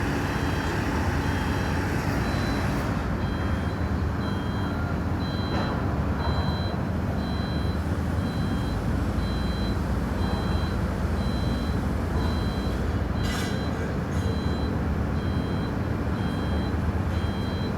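Construction vehicle's reversing alarm beeping about once a second, each beep short and two-pitched, over a steady low engine rumble. A brief clatter cuts in about thirteen seconds in.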